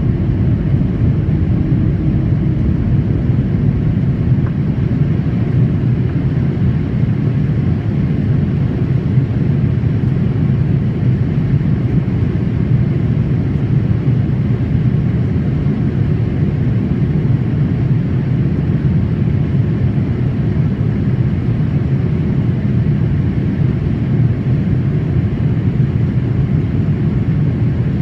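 Cabin noise of a Boeing 787 airliner in flight: a steady low rumble of engine and air noise that does not change.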